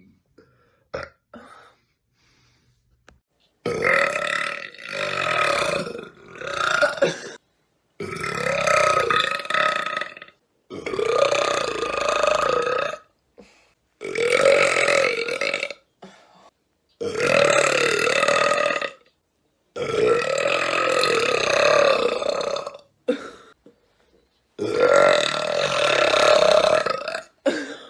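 A woman burping again and again: a few short burps, then about eight long, drawn-out burps of one to three seconds each with a wavering pitch and short pauses between. They are repeated burps from gas in her stomach that she cannot stop.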